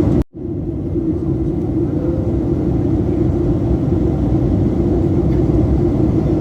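Steady rumble of an airliner heard from inside the cabin, with a low steady hum running through it. It cuts out for an instant just after the start, then comes straight back.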